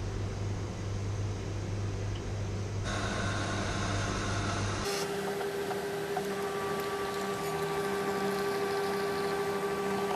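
Cafina self-serve coffee machine starting a cappuccino: about five seconds in a steady motor whine starts as it grinds the beans and brews. Coffee begins running into the cup near the end.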